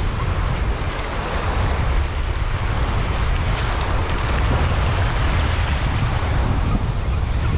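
Wind buffeting the microphone in a steady low rumble, over the wash of small surf waves breaking and running up the beach.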